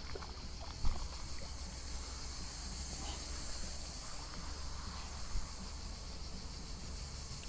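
Outdoor pondside ambience: a steady high chorus of insects over low wind rumble on the microphone, with a single sharp knock, likely from handling, about a second in.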